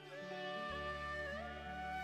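Instrumental background music: held notes that slide in pitch, over a low drone that comes in a little under a second in.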